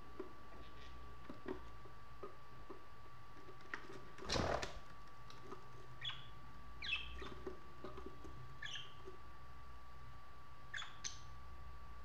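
Budgerigars giving several short, soft chirps, scattered through the second half, after a brief scuffling burst of noise a little after four seconds. A faint steady hum runs underneath.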